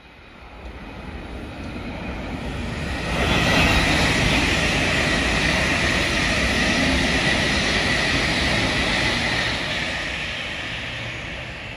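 A train passing through the station: a rushing noise of wheels on rail swells over about three seconds, holds with a steady high hum, and dies away near the end.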